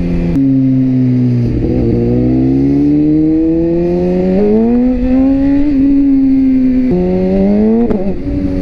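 BMW S1000RR sportbike's inline-four engine heard from the saddle, with wind and road noise under it. The engine note sags at first, then climbs steadily for several seconds. About seven seconds in the pitch drops sharply, as at a gear change, and then it climbs again.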